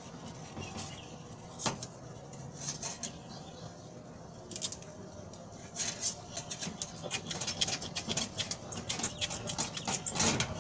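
Small clicks, taps and rustles of hands handling wires and push-on terminals inside an air conditioner's outdoor unit, a few at first, then coming thick and fast in the second half.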